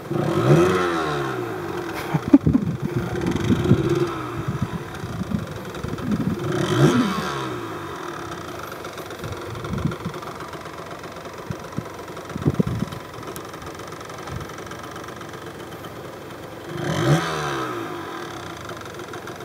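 Yamaha DT125's single-cylinder two-stroke engine running at a low idle and blipped several times, each blip a quick rise and fall in pitch, with a few short pops in between.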